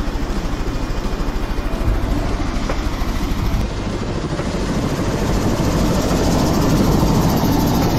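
Helicopter running on the ground with its rotor turning, a rapid steady blade beat over engine noise, getting louder about halfway through.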